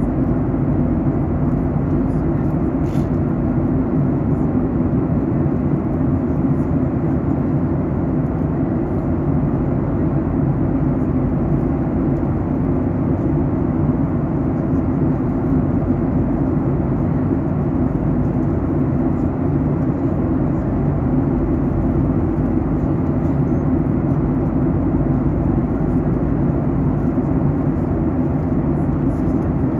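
Steady cabin noise of a Boeing 737 MAX 8 in flight during descent: an even, low roar of airflow and its CFM LEAP-1B engines.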